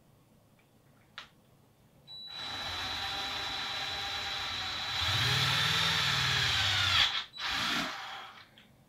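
Cordless DeWalt impact driver with a drill-chuck adapter spinning a step bit into a hollow plastic lure body, drilling a 1/4-inch hole. It starts about two seconds in with a steady whine, gets louder as the bit bites into the plastic about halfway, cuts off suddenly, then gives one short second burst.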